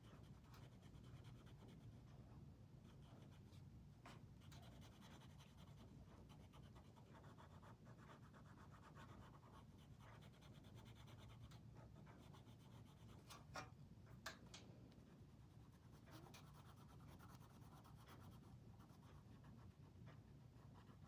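Faint scratching of colouring on paper: soft strokes of a colouring tool over a low room hum, with a couple of light clicks about two-thirds of the way through.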